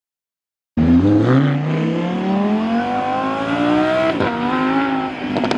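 Supercar engine accelerating hard, cutting in abruptly just under a second in, its pitch climbing steadily, dipping briefly for an upshift about four seconds in, then climbing again with a sharp crack near the end.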